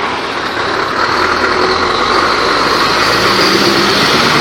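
Scania truck's diesel engine pulling away and driving slowly past close by, growing louder over the first second and then running steadily.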